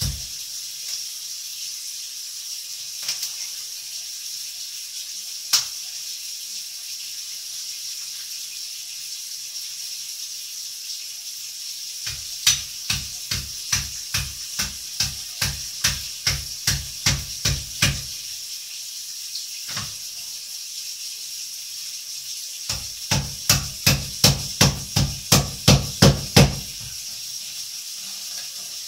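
Knife chopping on a cutting board: two runs of evenly spaced knocks, about two to three a second, the first lasting some six seconds and the second, a little faster, about four seconds, with a few single knocks before them.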